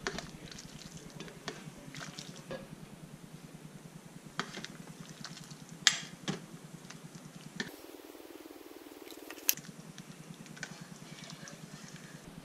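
A spoon stirring potato soup in a slow cooker's crock: soft wet stirring with several sharp clinks of the spoon against the crock.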